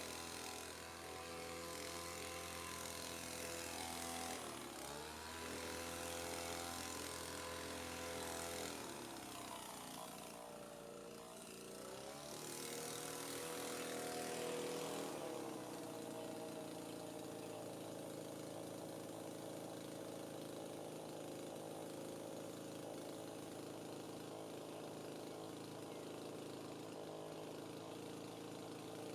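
Kasei petrol leaf blower's small engine running, its pitch dipping and climbing back as the throttle eases off and opens again a couple of times, then holding steady through the latter half.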